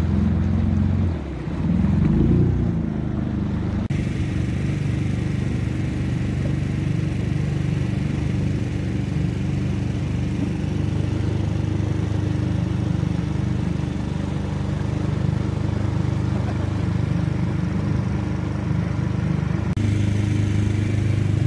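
Small boat's gasoline motor running steadily at idle speed, a low even hum, with a brief dip and waver about two seconds in.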